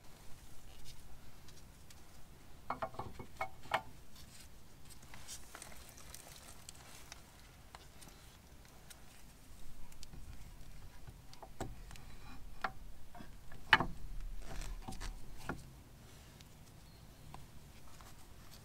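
Clicks and light metallic clinks of a powder-coated brake caliper being handled and fitted onto its carrier over a new brake disc. A few short ringing clinks come about three seconds in, and one sharper knock about two-thirds of the way through.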